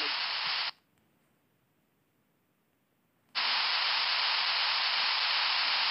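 Steady hiss of recording background noise, with no speech. Just under a second in it cuts out to dead silence for about two and a half seconds, then comes back at the same level.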